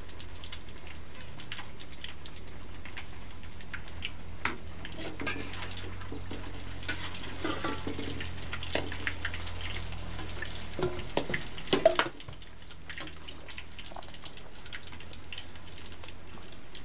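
Tempe frying in oil in a wok, a steady sizzle, with a metal spatula clinking and scraping against the wok as the pieces are turned; the clinks come in a run from about four seconds in and are loudest just before they stop, about twelve seconds in.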